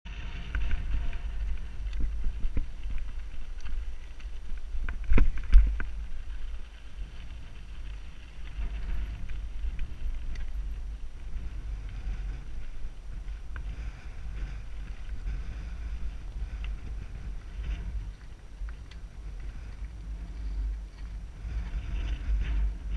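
Mountain bike riding over a rocky dirt trail, heard from a helmet-mounted camera: steady wind rumble on the microphone with tyre and frame rattle, and two sharp knocks about five seconds in as the bike jolts over rocks.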